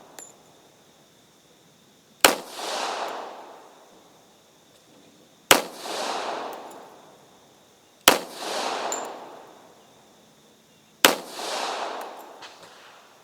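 Four single shots from a Springfield Armory M1911-A1 .45 ACP pistol, fired at a slow, even pace about three seconds apart, each followed by a long echo fading over about a second and a half.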